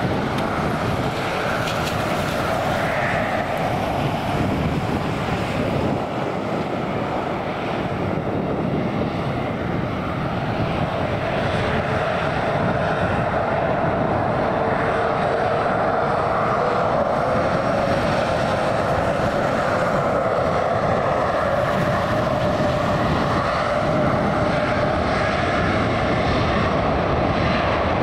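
Airliner engines running steadily, growing gradually louder, with a slowly drifting engine tone over the roar.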